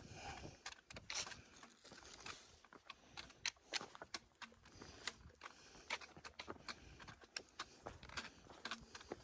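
Footsteps of a hiker in boots crossing loose rock: irregular clicks, knocks and scrapes of stones underfoot, several a second.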